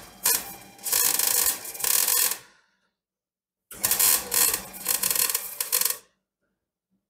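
MIG welder arc crackling as steel frame joints are welded out, in two runs: one stopping about two and a half seconds in, a second from about three and a half to six seconds in.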